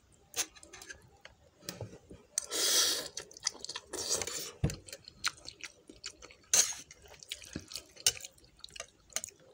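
Someone eating hot instant noodles in broth: two slurps about two and a half and four seconds in, with chewing and a scatter of light clicks from the fork and spoon against the bowl.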